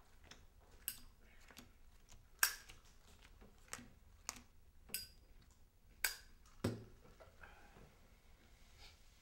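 Playing cards being dealt onto a felt poker table: a handful of short, sharp flicks and light knocks at irregular intervals, one of them a duller thump about two thirds of the way through.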